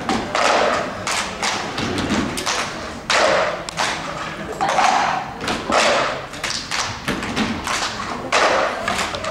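A group of children knocking and tapping plastic cups on a wooden stage floor in a cup rhythm game: a run of sharp thumps and taps, roughly two a second, ringing briefly in the hall.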